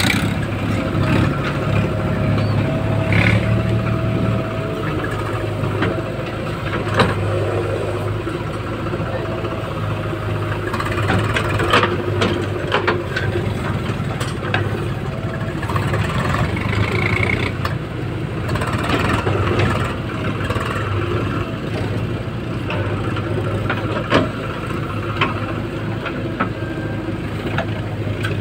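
JCB 3DX backhoe loader's diesel engine running steadily as the backhoe digs soil and swings to the trolley, with a few sharp knocks from the bucket and arm.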